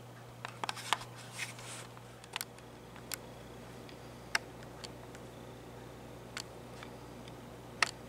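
Red-shafted northern flicker's bill tapping and clicking at a hanging seed feeder as it feeds: irregular sharp taps, the loudest about halfway through and near the end, over a steady low hum.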